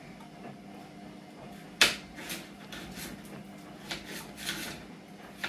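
Kitchen knife cutting a red pepper on a plastic chopping board: one sharp knock of the blade on the board about two seconds in, then several lighter cutting taps at uneven intervals.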